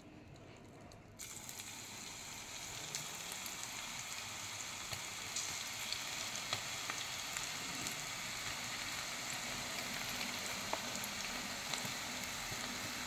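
Batter-coated cauliflower pieces deep-frying in hot oil in a kadai: a sizzle that starts suddenly about a second in and builds as more pieces go in, with scattered crackles.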